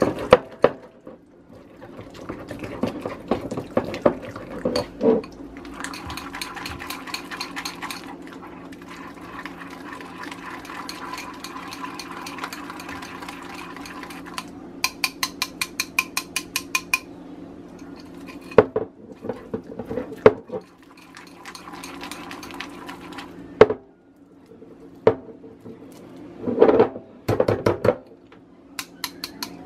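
Small wire whisk beating chilled, thickened homemade margarine in a glass bowl: the wires click and scrape against the glass in irregular runs of strokes, with one fast rattling run partway through. A steady low hum sits underneath.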